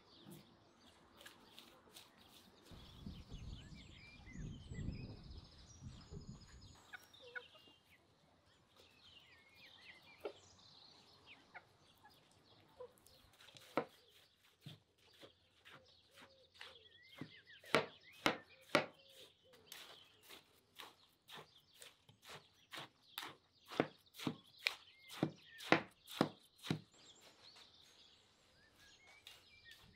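Chickens clucking and small birds chirping, with a low rumble for about four seconds near the start. From about halfway a run of sharp knocks, roughly two a second, stands out above the birds.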